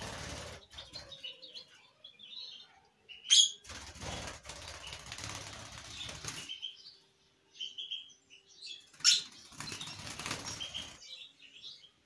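Rosy-faced lovebirds flapping their wings in short flights, in three bursts of wingbeats. A loud, sharp call comes about three seconds in and another about nine seconds in, with softer chirps between.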